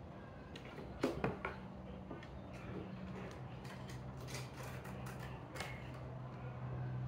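Kittens' claws scratching and clicking on a rough wooden table leg and paws pattering on wooden floorboards: a few sharp knocks about a second in, then scattered light clicks and scrapes, over a steady low hum.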